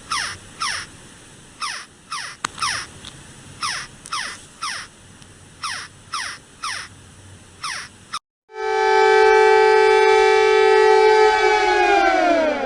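Reversed playback of an Emergency Alert System alarm: a rapid series of short falling chirps, about two a second, for some eight seconds. Then a steady, harsh two-tone alert tone glides downward in pitch near the end.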